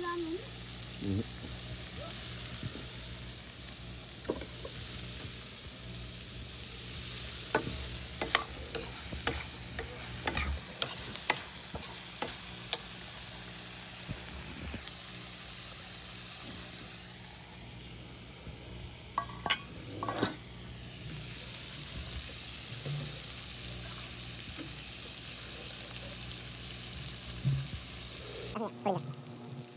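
Chicken pieces sizzling steadily in a black iron wok over a wood fire. A metal spatula stirs and scrapes them, with runs of sharp clacks against the pan about eight seconds in and again around twenty seconds.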